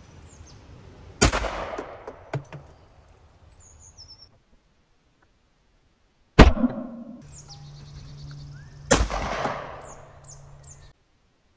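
12-gauge semi-automatic shotgun fired three times: about a second in, about six seconds in and about nine seconds in, each blast followed by a fading echo. The middle shot is the loudest and sharpest.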